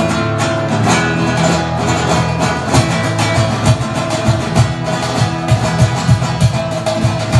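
Acoustic guitar strummed and picked fast and rhythmically, with sharper percussion hits coming in on a regular beat from about three seconds in.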